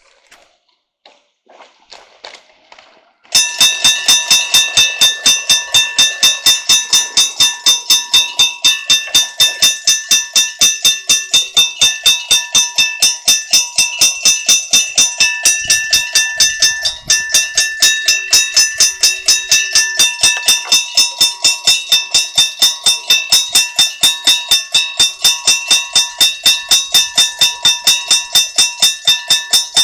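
Japanese level-crossing warning bell of the striking-bell type, starting about three seconds in and ringing loudly and rapidly at about three to four strokes a second. It signals that a train is approaching the crossing, and this crossing keeps the bell type deliberately so that it can be told apart from the alarm at the adjoining JR crossing.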